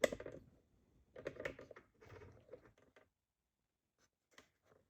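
Irregular small clicks, taps and rustles of objects being handled, dying away after about three seconds.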